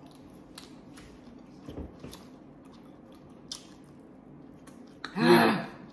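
Chewing and biting into spicy chicken wings: soft, scattered wet mouth clicks and smacks. Near the end comes a loud, short vocal exclamation.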